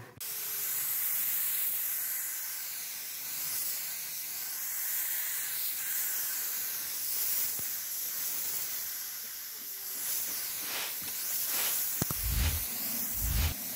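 Compressed-air gravity-feed spray gun hissing steadily as it sprays lacquer onto a wooden table. A few low thuds come near the end.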